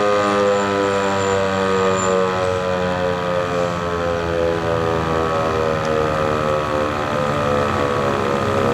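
ASC T-128 Tempest outdoor warning siren sounding, loud and continuous: several tones at once, sliding slowly down in pitch.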